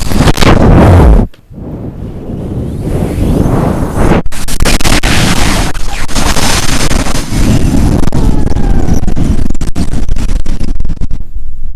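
Very hard wind buffeting the microphone in loud, rumbling gusts. A heavy gust in the first second cuts off sharply, then the wind builds back to a sustained roar.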